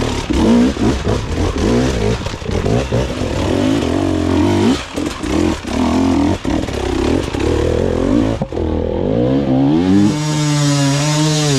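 Enduro dirt-bike engines revving hard in bursts as riders climb a rocky gully, with knocks and clatter of the bikes hitting rock. About two-thirds of the way in the sound cuts, then one engine revs up and holds a high note near the end.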